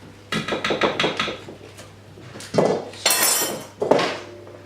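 A metal knife and spoon clinking and scraping against a mixing bowl while ingredients are stirred: a quick run of small clinks, then a few louder knocks and a ringing scrape near the end.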